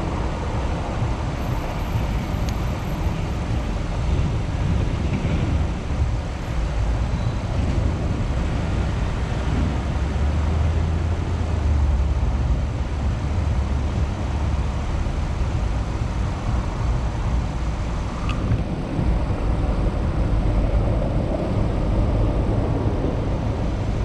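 Continuous city street traffic noise heard from a moving bicycle: a steady, noisy low rumble with no single standout event.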